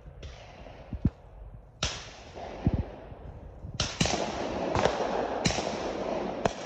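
Several distant shotgun reports, each echoing and fading, one after another through the few seconds. A close knock comes about a second in, as the shooter handles his own gun.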